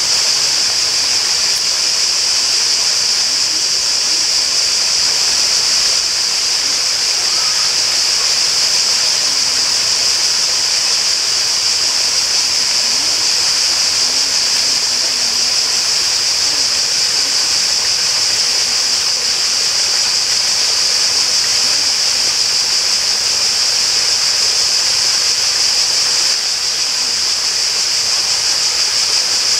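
Flowing water rushing steadily, under a constant high-pitched chorus of cicadas.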